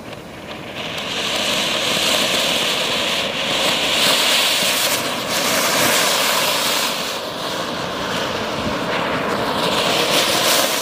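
Anar (flower pot) fountain fireworks, a large one with several small ones on top, burning together: a loud, steady hissing spray of sparks that swells up about a second in and dies away at the very end.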